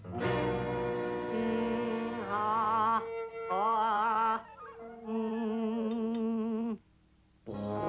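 Cartoon background music: a melody of long held notes, some with a wide vibrato, breaking off briefly near the end.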